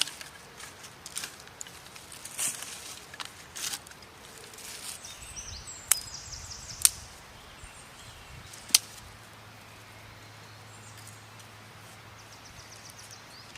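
Outdoor woodland ambience with three sharp snaps or knocks, about 6, 7 and 9 seconds in, and two short bursts of fast high chirping. A low steady hum comes in about halfway through.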